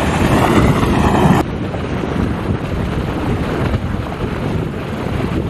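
Wind buffeting the camera's microphone, a dense rushing noise heaviest in the bass. It drops suddenly about a second and a half in, then carries on at a lower level.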